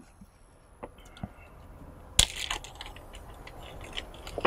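A plastic zip-top bag being handled: a few faint ticks, then a sharp crackle about two seconds in, followed by a run of small crinkles and clicks.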